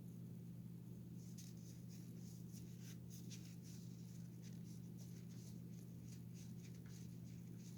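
Faint, irregular scratchy rubbing strokes from about a second in as a dirty plastic football is scrubbed clean by hand, over a steady low electrical hum.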